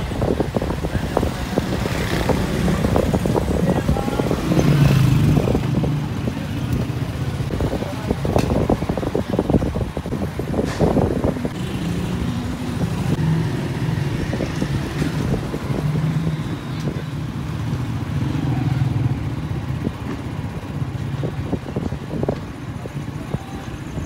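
Street traffic: motor vehicle engines running and passing, with a steady low hum and scattered knocks and rustles.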